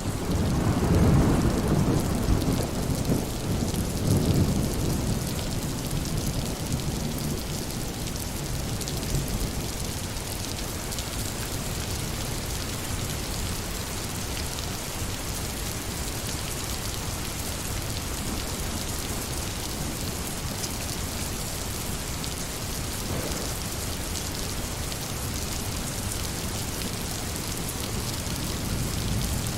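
Steady rain falling, with a low roll of thunder that rumbles through the first few seconds and fades away.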